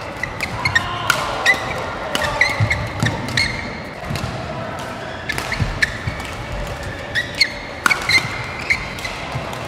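Fast badminton doubles rally: sharp shuttlecock hits off racket strings every fraction of a second, mixed with short squeaks of court shoes on the floor.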